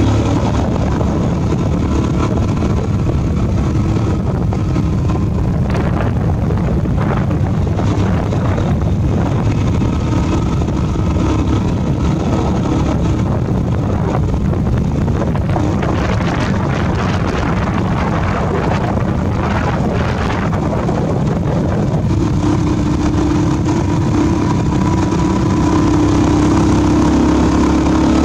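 Motorbike engine running steadily while riding, heard from on the bike, with wind rushing over the microphone. The engine's note is clear near the start and end and is mostly covered by the wind noise in the middle.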